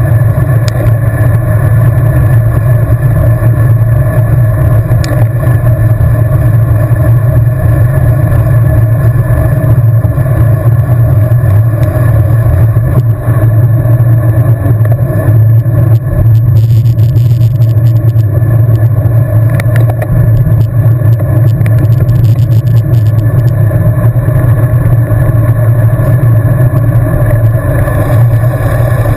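Loud, steady wind rumble buffeting the microphone of a camera riding along on a road bike at race speed.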